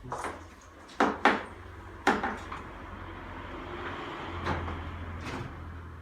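Knocks and clatter from dismantling a washing machine: the wire clamp on its rubber seal is being worked loose, with four sharp knocks in the first two seconds, then a steady rubbing and scraping with one thump near the end.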